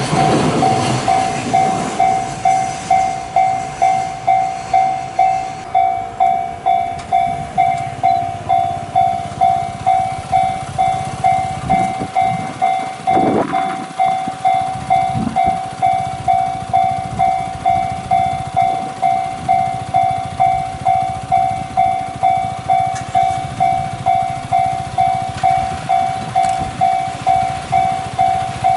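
Railway level-crossing warning bell ringing steadily at about two strikes a second, over the rumble of a passing train that is loudest at the start.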